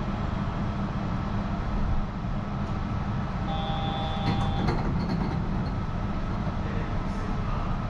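Steady low rumble and hum of a Yurikamome rubber-tyred automated train, heard from inside the car. A short electronic beep sounds about three and a half seconds in and lasts about a second.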